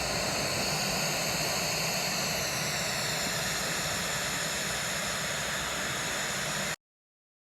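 Steady, even hiss of background noise with no distinct events. It cuts off abruptly shortly before the end, leaving dead silence.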